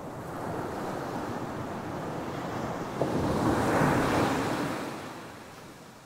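Ocean waves breaking and washing up a sandy beach, a steady rushing surf. The surge swells to its loudest about four seconds in, then fades away near the end.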